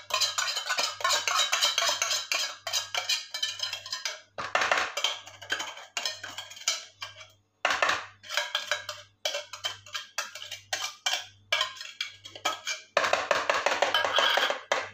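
Metal spoon scraping canned cream out of a tin can, in bouts of rapid scraping and clicking against the can's metal sides and rim as the can is scraped clean.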